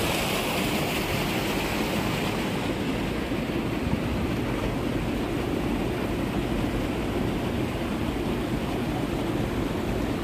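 Steady rushing of water at a concrete irrigation dam, a continuous noise whose upper hiss eases over the first couple of seconds, over a constant low rumble.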